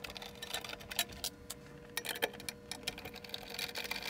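Irregular run of small clicks and ticks from a hand screwdriver working at the screws and fittings of a photomultiplier tube mount, with a faint steady electrical hum underneath.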